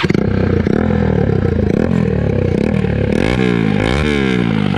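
Bajaj Pulsar NS200's single-cylinder engine running loud through an open bend pipe with the silencer barrel removed. It idles, then the throttle is blipped a few times about three seconds in, the pitch rising and falling with each rev.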